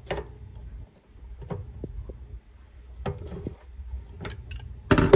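Channel-lock pliers clicking on a faucet's brass cartridge nut as they grip and turn it loose: a few sharp metallic ticks a second or more apart, then a louder clack near the end that rings briefly.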